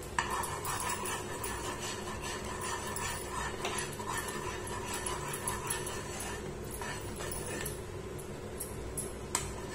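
A metal spatula scraping and clinking against a kadai as thickened khoa is stirred for peda, over a steady low hum.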